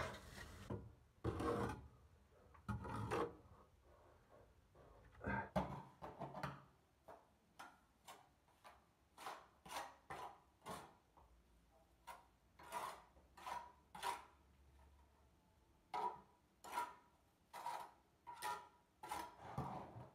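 Steel brick trowel scraping and turning mortar in a metal wheelbarrow: a run of short scraping strokes, steadying to about one and a half a second from about five seconds in.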